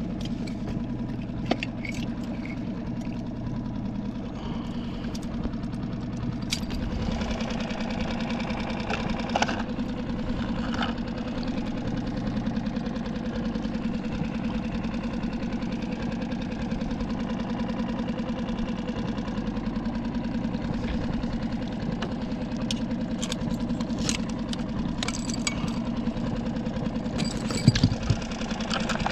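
Small boat's outboard motor idling steadily, with a few sharp clicks and knocks from gear being handled, most of them near the end.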